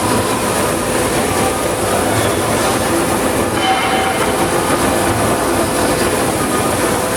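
Oxy-fuel cutting torch cutting thick steel: a loud, steady rushing hiss, with faint thin whistling tones coming and going.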